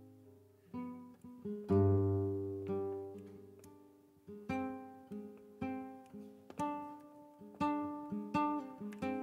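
Flamenco guitar playing a soleá: single plucked notes and strummed chords, each ringing and dying away, with a full strummed chord about two seconds in the loudest.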